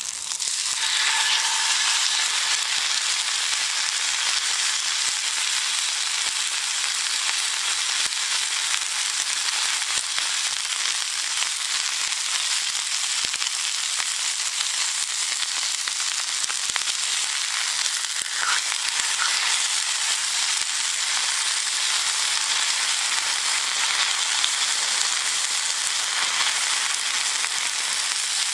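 Wagyu steak, asparagus and garlic frying in oil in a cast-iron skillet: a steady sizzle that steps up louder about half a second in.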